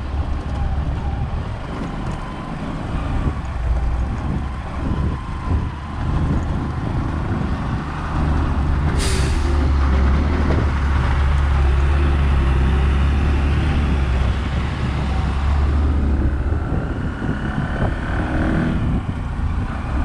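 Heavy cargo trucks' diesel engines rumbling at close range on a dirt road. The low rumble grows louder from about eight seconds, as a truck is right alongside, with a short air-brake hiss about nine seconds in.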